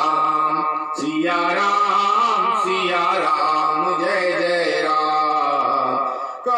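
A solo devotional melody sent through a small red handheld horn held at the lips, in long held notes that waver and bend, with a short break about a second in.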